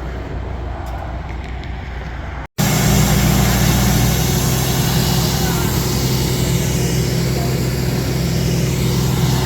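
Heavy diesel truck engine idling steadily, a low hum. After a sudden break about two and a half seconds in, it is much louder and closer.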